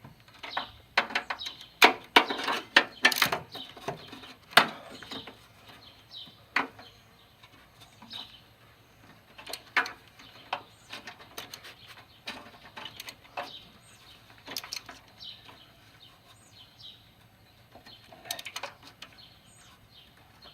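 Ratchet wrench clicking in short irregular runs, with metal tool clinks, as a spark plug is tightened into the engine with a 13/16 socket on an extension. The clicks are densest in the first few seconds, then come sparser.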